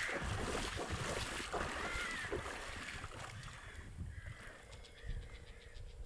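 Water sloshing and splashing around wader-clad legs as a man wades through a shallow river, loudest in the first half and easing off after about three seconds. A few short bird calls sound in the background.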